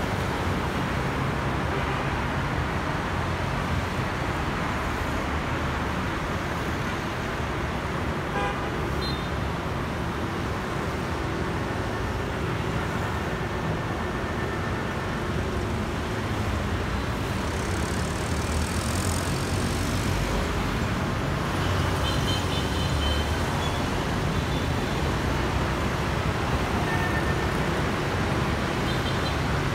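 Steady road traffic of motorbikes and cars passing on a multi-lane city street, with a few short horn beeps.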